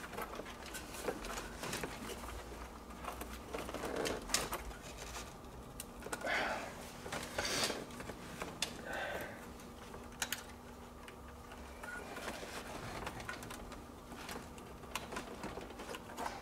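Scattered small clicks, rattles and knocks of hands and tools working on fittings behind a classic Mini's dashboard, with a few short scraping rustles.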